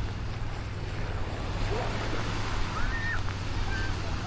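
Black Sea surf washing onto a sandy beach, with wind buffeting the microphone as a steady low rumble. A faint, short high call rises and falls about three seconds in.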